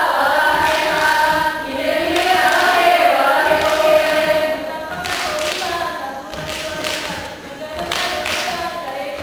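Saman dancers singing a chant together in unison. From about halfway in, sharp hand claps and slaps on the body join in rhythm under the singing.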